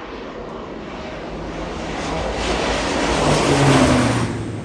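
Crop-dusting airplane making a low pass overhead: its engine and propeller noise builds up, peaks about three-quarters of the way in, and drops in pitch as it goes by.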